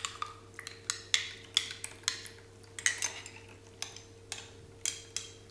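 Metal teaspoon clinking and scraping against the inside of a drinking glass as yeast water is scraped out of it: a string of irregular light clinks.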